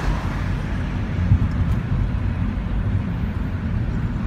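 Steady low road and engine rumble of a moving vehicle, heard from inside its cabin.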